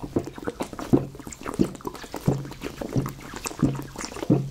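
A man gulping soda straight from a plastic bottle, about seven swallows in a steady rhythm, one roughly every 0.7 seconds.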